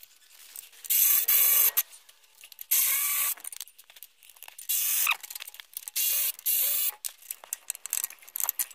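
Ratchet wrench worked in four quick strokes of rapid clicking, with small clicks and knocks between, undoing a 17 mm bolt by the gearbox mount.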